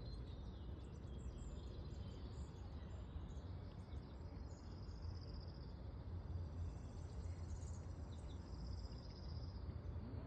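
Outdoor background noise: a steady low rumble with faint, scattered high bird chirps.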